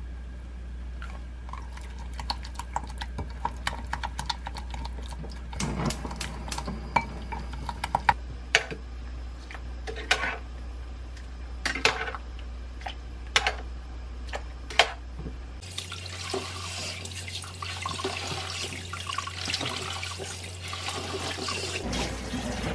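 Light taps and clinks of kitchen utensils on a glass bowl and a metal pot, with a steady low hum underneath. About two-thirds of the way in, a kitchen tap starts running into a sink, and it stops just before the end.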